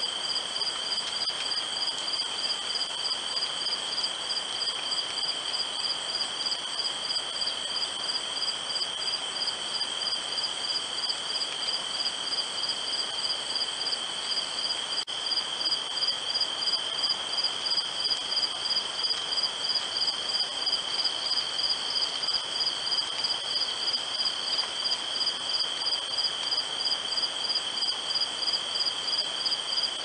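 Night insect chorus of crickets: one trills on a steady high tone while another chirps in a fast, even pulse above it.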